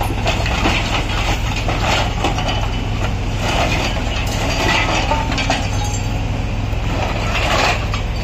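Kobelco SK140 excavator's diesel engine running steadily as its hydraulic grab bites into and drops debris, with repeated irregular crunching and clinking of rubble and scrap.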